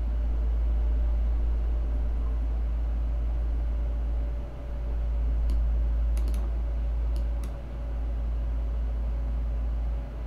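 Steady low electrical hum, with a few soft computer mouse clicks in the middle as a piece is picked up and moved on screen.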